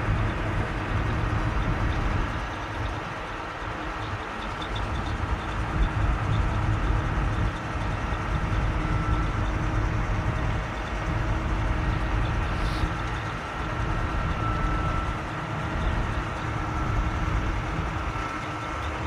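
Heavy construction machinery running steadily: a low rumble with a faint steady whine above it.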